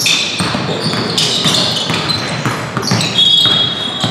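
Basketball bouncing on a hardwood gym court during play, with short high sneaker squeaks on the floor, the clearest a little after three seconds in.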